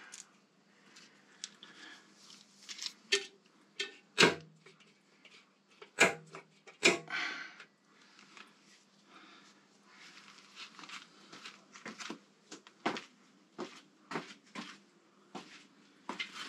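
Scattered clicks and knocks of hand tools and metal parts being handled during work on a motorcycle's front fender, with a few sharper knocks among them.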